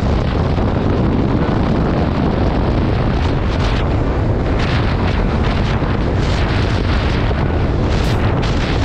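Heavy, steady wind noise buffeting the microphone of a helmet-mounted action camera on a motorcycle cruising at about 88 km/h.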